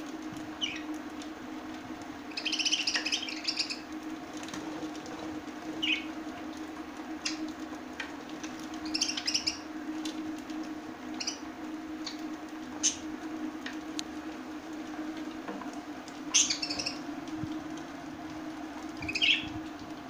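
A flock of budgerigars chirping in short, scattered bursts of chatter. The loudest bursts come about three seconds in, near nine seconds, at about sixteen seconds and just before the end. A steady low hum runs underneath.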